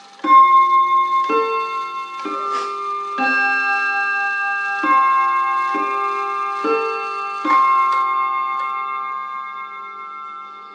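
A Jolema three-train chiming wall clock plays its chime melody: eight soft, mellow notes in two phrases of four, each ringing on while the next is struck, then dying away near the end.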